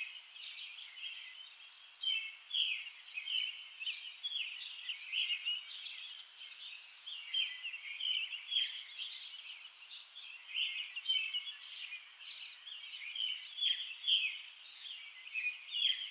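Songbirds chirping continuously, many short overlapping calls in quick succession.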